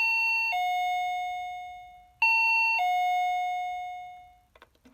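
Chime doorbell sounding ding-dong twice, about two seconds apart: each time a short higher note, then a lower note that rings out and fades.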